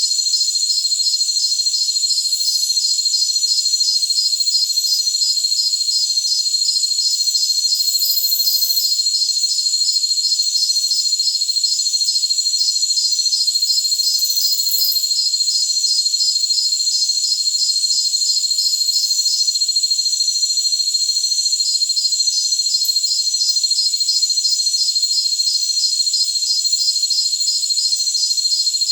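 A jungle cricket chorus: a steady, high-pitched trill with a second insect chirping in quick pulses, about four a second, on top. The pulsing stops for a couple of seconds past the middle, then starts again.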